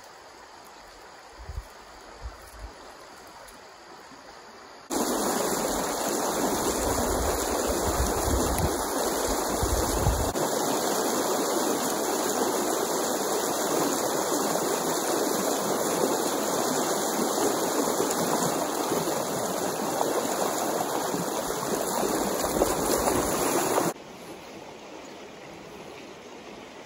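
Stream water rushing over a shallow riffle, a steady loud rushing that comes in suddenly about five seconds in and drops away to faint flow near the end. Before that there is only faint outdoor background with a few soft low thumps.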